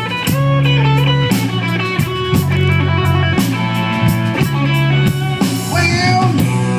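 Live slow blues played by a trio of electric guitar, electric bass and drum kit: guitar fills and sustained notes over a steady bass and drum beat, with no vocal line.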